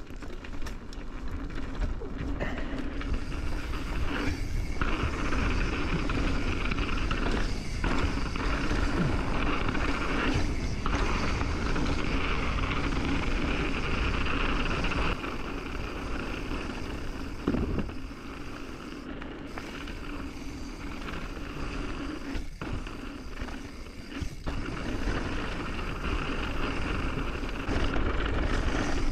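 Mountain bike running down a dirt bike-park trail, picked up by a GoPro: a steady rush of tyre and wind noise with scattered knocks and rattles over bumps. It is quieter for a stretch after the middle and louder again near the end.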